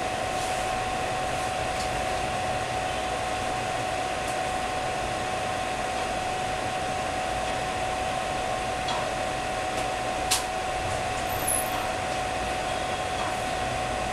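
Steady whirring machine noise with a constant high whine, like a cooling fan running, and one sharp click about ten seconds in.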